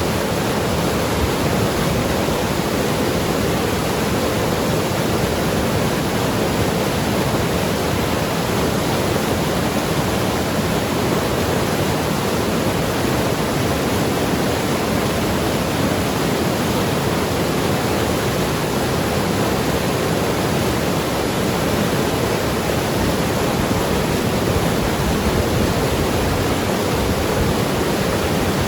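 Mountain river rushing and gurgling over rocks, a steady, unbroken flow.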